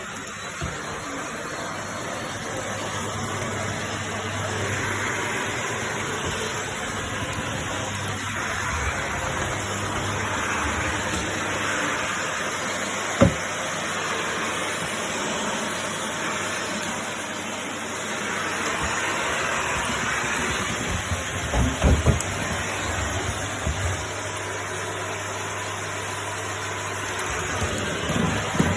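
Vacuum cleaner running steadily, a low hum under a hiss that swells and fades as it works. A sharp click about halfway through and a few knocks later on.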